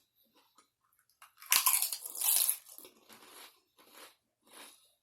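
A crunchy bite into potato chips, loudest about one and a half seconds in, followed by a few softer chewing crunches.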